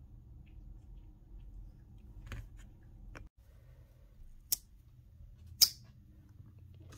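Boker Barlow slipjoint pocket knife being handled and its blade closed: a few faint clicks, then two sharp metallic clicks in the last few seconds, the second and much louder one the blade snapping shut under its backspring.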